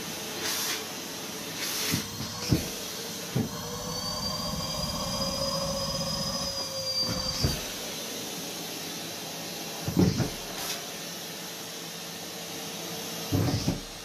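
Numatic Henry Xtra cylinder vacuum cleaner running steadily while its wand sucks up socks. A high whistling tone sounds for about four seconds in the middle, and there are several knocks and thumps as socks are pulled into the wand and hose.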